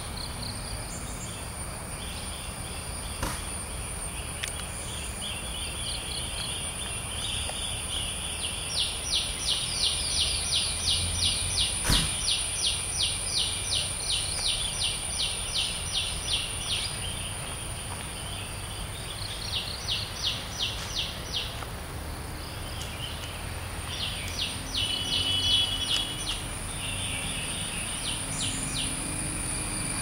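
Forest ambience: a steady high-pitched insect drone, with repeated bouts of rapid pulsed chirping at about three pulses a second, the longest lasting about eight seconds. A single sharp click sounds near the middle.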